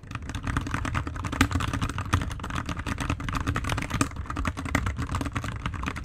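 Royal Kludge RK61 60% mechanical keyboard typed on rapidly and continuously: a dense stream of keystroke clacks with no pause. The keystrokes sound deep, probably because of where the microphone sits.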